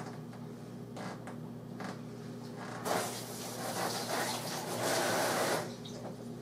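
Kitchen tap running into the sink for about three seconds, starting about three seconds in, after a few light knocks. A steady low hum runs underneath.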